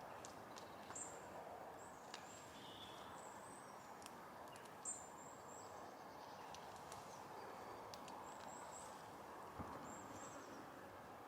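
Quiet garden ambience with small birds giving short, thin, high-pitched calls every second or two, and a few faint sharp clicks.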